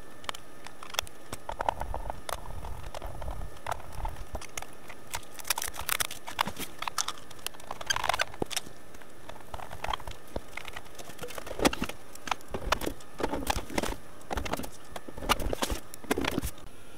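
Irregular clicks, taps and knocks of hands handling a Sony MiniDisc deck as it is put back together, with no steady rhythm.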